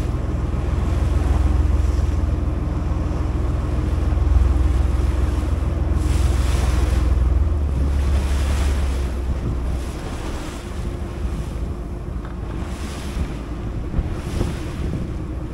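A fishing boat's outboard engine runs under way, with wind buffeting the microphone and water rushing past the hull. The low engine rumble eases off about eight to ten seconds in as the boat slows to drift.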